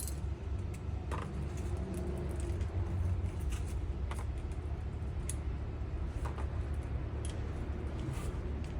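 Scattered light clicks and taps from handling hand tools and engine parts, about one a second, over a steady low hum.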